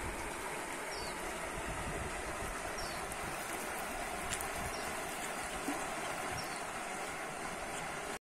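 Steady rushing of a swollen, muddy river running high in flood after heavy rains, with short high falling chirps every second or two.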